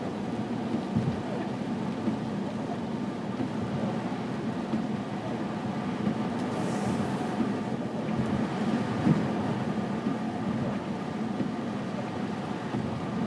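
Steady road and engine noise heard from inside a car driving on a snow-covered highway, with a low hum under the tyre noise and a brief hiss about seven seconds in.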